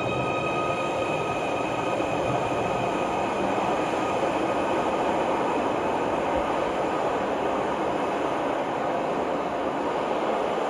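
Merseyrail Class 777 electric train pulling out of an underground station platform and running off into the tunnel: a steady rumble of wheels and running gear.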